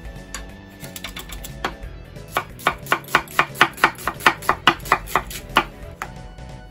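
Chef's knife slicing half an onion on a wooden cutting board. A few scattered cuts come first, then a quick, even run of knife strokes knocking on the board, about five a second, which stops shortly before the end.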